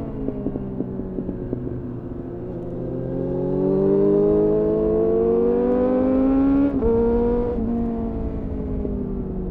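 2001 Suzuki GSF600 Bandit's inline-four engine through a GPR Furore Nero aftermarket exhaust, heard onboard while riding. The revs fall off, then climb steadily under acceleration for about four seconds, with a quick gear change about seven seconds in, then ease off again. Wind rush runs underneath.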